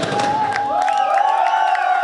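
A rock band's final chord dies away in the first second. Then a concert crowd cheers, shouts and whoops.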